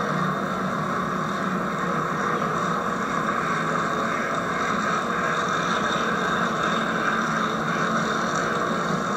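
HO-scale model trains running past on the layout's track: a steady mechanical running noise of small motors and wheels on rail, under the hiss of old VHS tape audio.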